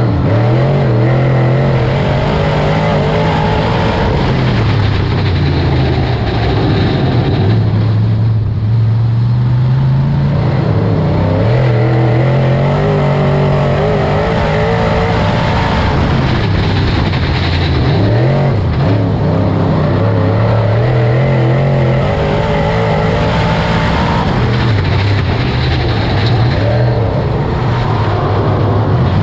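Dirt late model race car's V8 engine running hard at racing speed. The engine note climbs and drops in repeated swells about every five to six seconds, as it accelerates and lifts lap after lap.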